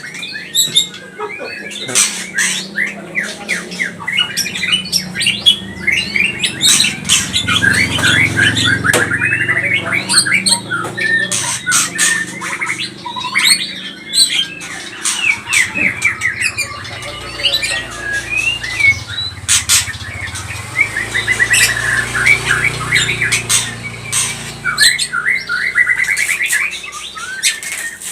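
White-rumped shama (murai batu) giving agitated, harsh chatter: rapid rattling runs of short notes mixed with sharp clicks and squawks, repeated throughout.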